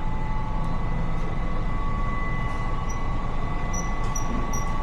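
Steady machinery rumble with a constant high whine running under it. From a little past halfway, a series of short, high-pitched beeps repeats a few times a second.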